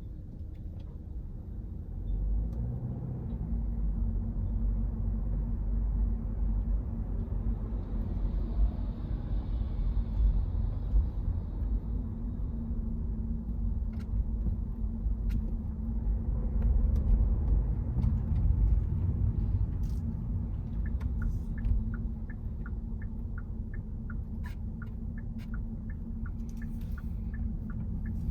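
Car driving on a rain-wet road: a steady low rumble of engine and tyres, swelling slightly about two seconds in. In the last quarter a regular ticking comes in, about two ticks a second.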